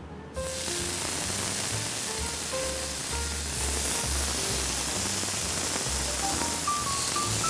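Bacon strips sizzling in a hot frying pan: a steady frying hiss starts suddenly as the first strip goes in and grows brighter a few seconds later, over background music.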